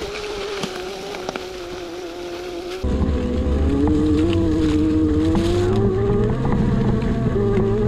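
Electric trials motorcycle's motor whining steadily. About three seconds in, the sound turns suddenly louder with a heavy low rumble, and the whine dips and then climbs in pitch.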